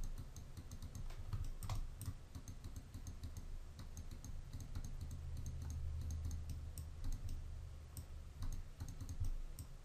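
Scattered light clicks from a computer mouse over a low, steady hum.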